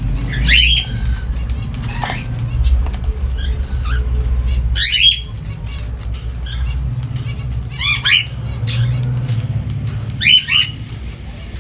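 Aviary birds calling: four loud, sharp squawks a few seconds apart, each sweeping steeply in pitch, over a steady low rumble.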